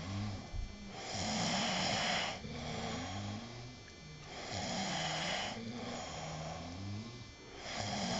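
A sleeping person snoring: low, wavering snore tones alternate with loud, breathy rushes of air, three of them about three seconds apart.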